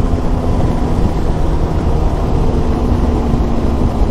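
Benelli TRK 502X's parallel-twin engine running steadily while riding, under a loud, even rumble of wind on the microphone.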